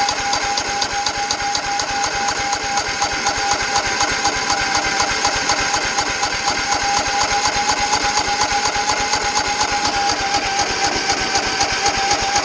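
Riding lawn mower's small gasoline engine running at a steady speed with a fast, even firing rhythm.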